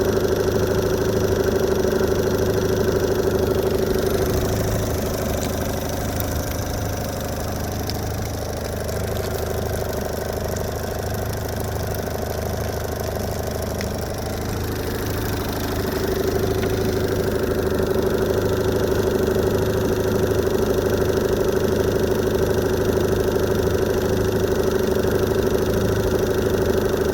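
Evinrude E-TEC 15 hp H.O. two-stroke outboard idling steadily in neutral; its note eases off for about ten seconds midway and then returns. The engine is running hot at idle, which the owner blames on a thermostat that is not opening.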